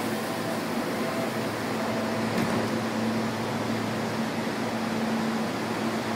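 Steady low hum over an even hiss from a train car, with no distinct events.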